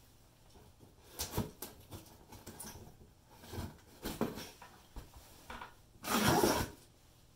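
Hands handling a cardboard shipping box, with scattered light rubs and taps, then a pocket knife slitting the packing tape along the box's seam: a short rasping cut, the loudest sound, about six seconds in lasting under a second.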